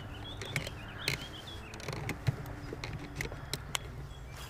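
Scattered sharp clicks and light knocks from a baitcasting rod and reel being worked during a lure retrieve, over a steady low hum, with a few short bird chirps in the first second or so.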